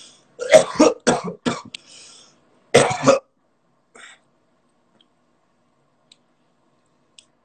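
A man coughing and clearing his throat: a string of short, sharp coughs in the first three seconds, then one faint one.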